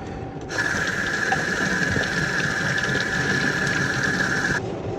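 Small condensate pump motor running for about four seconds with a steady high whine, switched on by its float; it starts suddenly about half a second in and cuts off suddenly near the end.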